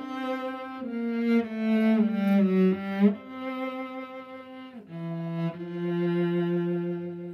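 Solo cello playing a slow, lyrical melody of sustained bowed notes, several stepping downward, then one long held low note through the second half.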